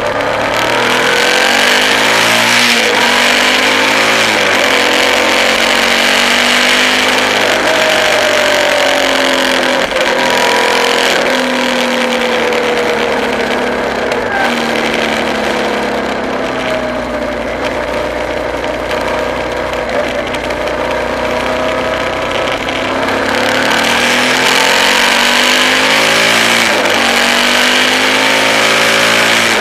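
A car's engine and its road and wind noise, heard from inside the cabin. The engine note rises and falls over and over as the car speeds up and eases off through the bends.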